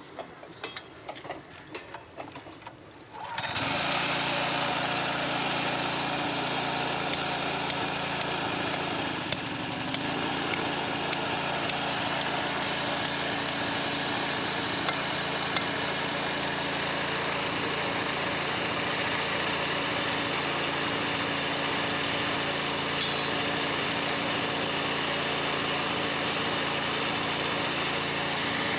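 A few sharp metallic clicks, then about three and a half seconds in a small petrol engine on a hydraulic power pack starts suddenly and runs steadily at a constant speed.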